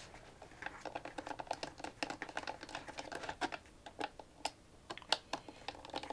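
Phillips screwdriver turning small screws out of a Maxtor OneTouch II external hard drive case: a run of light, irregular clicks and ticks, several a second.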